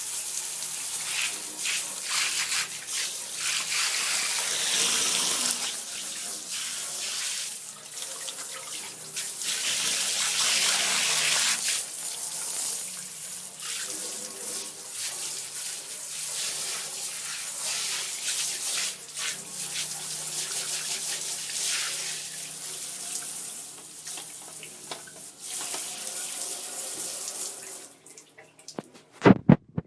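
Bathroom shower running, its spray hissing and splashing and rising and falling in loudness. The water stops near the end, followed by a few short, sharp, loud sounds.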